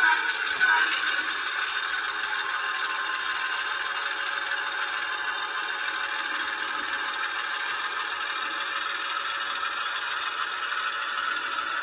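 ESU LokSound sound decoder in an HO-scale Athearn diesel switcher, playing a steady diesel engine running sound with a rattly clatter through the model's small speaker as the locomotive moves slowly along the track. The sound is thin, with no bass, and there is a brief louder sound about half a second in.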